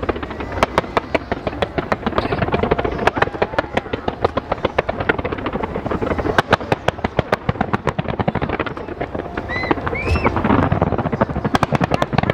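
Fireworks display going off in rapid succession: a dense string of sharp bangs and crackles, several a second, over a steady low rumble.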